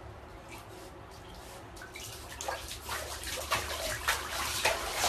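A Shiba Inu paddling its front legs in a bathtub of water, making irregular splashes that start about two seconds in and grow louder and quicker.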